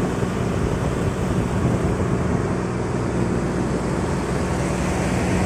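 Fishing boat's engine running steadily, a low even drone, under a steady hiss.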